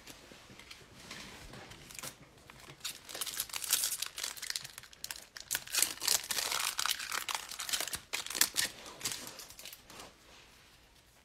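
Foil Donruss football card pack being torn open and its wrapper crinkled by hand, a crackly, noisy rustle with sharp snaps that is loudest in the middle of the stretch and dies down near the end.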